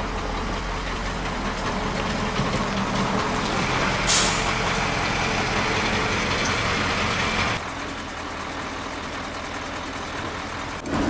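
Crane-manipulator truck's engine running, with a short sharp hiss of the air brakes about four seconds in. The engine noise drops and gets quieter a few seconds later.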